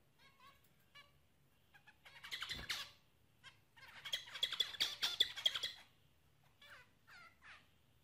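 Zebra finches calling with short nasal call notes. About two seconds in there is a burst of rapid chattering song, and a longer, louder one follows from about four to six seconds in.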